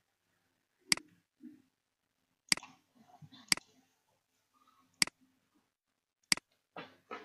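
Computer mouse clicking: five sharp single clicks, one every second or so, with a short softer sound near the end.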